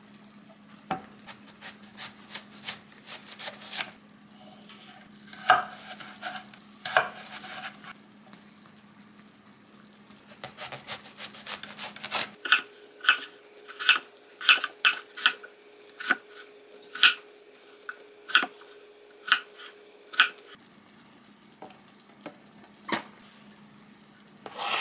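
A kitchen knife cutting through a yellow-fleshed watermelon on a wooden cutting board: short crisp crunches as the blade goes through rind and flesh, with knocks of the knife on the board. The strokes come in scattered groups at first, then in a quick steady series for several seconds about halfway through.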